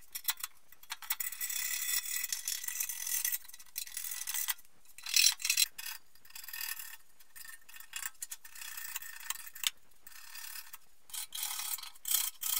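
A chisel scraping rust-ridden paint off the steel seam flange of a car fuel tank, in irregular scratchy strokes with short gaps between them.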